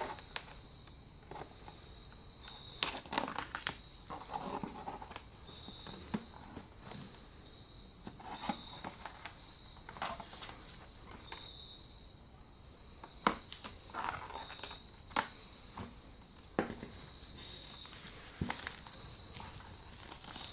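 Clear plastic protective film crinkling and tearing as it is cut and peeled off a new wireless router, with scattered sharp clicks and short rustles.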